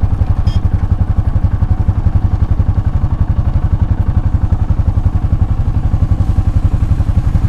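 Motorcycle engine running steadily, with a rapid, even beat of firing pulses.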